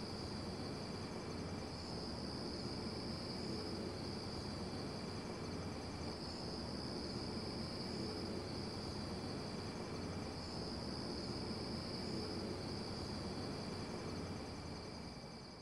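A steady chorus of crickets chirping, a high-pitched shimmer that swells and eases every few seconds, fading out near the end.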